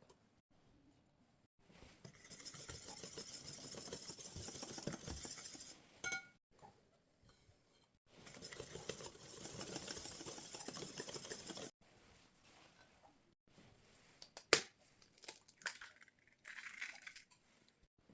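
Kitchen food-prep handling sounds: two long stretches of steady rustling, each cut off abruptly, then a sharp click and a few small clinks and knocks.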